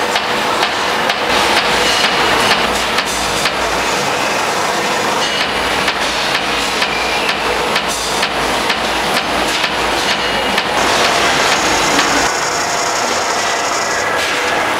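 LVD Shape Delta 1250 thin-turret CNC punch press punching sheet metal: a fast, even run of sharp hits, about two or three a second, over a steady machine hum. In the last few seconds the hits thin out and a higher whine comes up.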